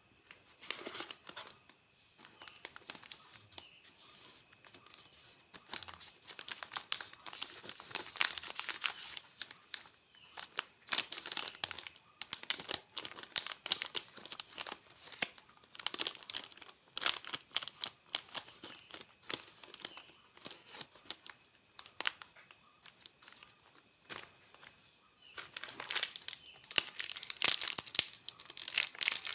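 Plastic snack packaging being crinkled and torn open by hand, in irregular crackling bursts with brief pauses.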